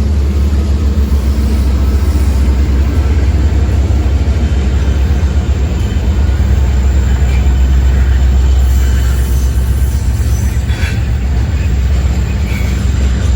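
Diesel-electric freight locomotive running close by, a loud steady low engine rumble, with a few faint short squeals in the second half.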